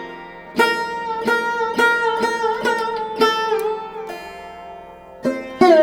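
Background music: a plucked string instrument playing a slow phrase of ringing notes with pitch bends over a steady drone. The notes die away about four seconds in and start again near the end.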